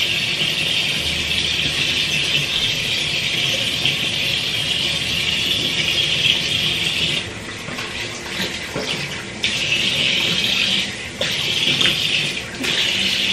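Water running from a tap into a sink, a steady hiss that drops and comes back several times in the second half, as the stream is broken.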